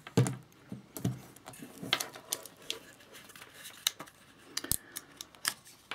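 Light clicks and taps of a Nikon F2 35mm film camera body being handled, small metal parts knocking, with a couple of sharper clicks near the end.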